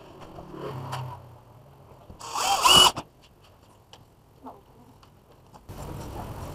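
Electrical tape ripped off the roll in one short, loud screeching pull about two seconds in. A steady low rumble sets in near the end.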